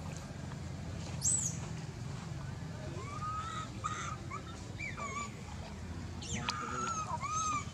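Baby monkey crying: short, arching, whimpering calls repeated several times, bunched together near the end, with one sharp high squeal about a second in.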